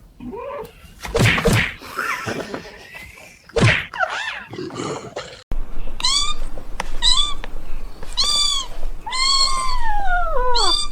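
Thumps and scuffling, then, after a sudden cut, a kitten meowing about five times in high, thin calls, the last one long and falling in pitch.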